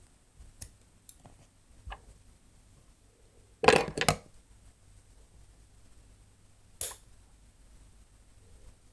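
Clippers snipping through leather bootlace: a quick cluster of three or four sharp snips about four seconds in, one more snip near the end, and a few faint handling clicks.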